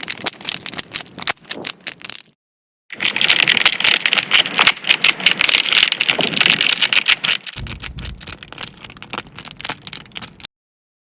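Fast, dense clicking and rattling in two stretches with a brief break between them, and a low thud about eight seconds in.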